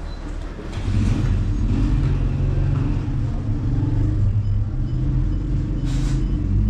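A loud, low motor rumble, like an engine running, that swells about a second in and then holds steady.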